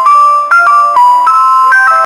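Loud electronic chime melody, a simple tune of clear held notes that step up and down every quarter to half second, like an alert or jingle tone.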